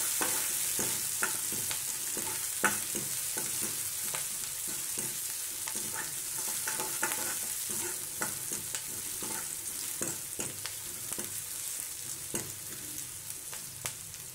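Chopped onion frying in hot mustard oil in a metal kadhai: a steady sizzle, with a steel ladle scraping and clinking against the pan as it is stirred. The sizzle slowly eases off toward the end.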